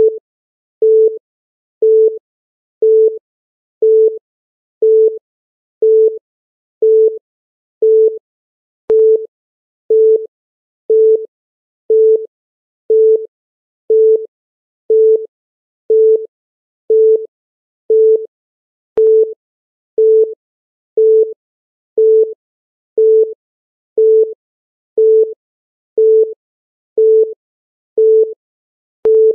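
Countdown timer beeping once a second: a short electronic beep at one steady pitch, repeated evenly, with a faint click about every ten seconds.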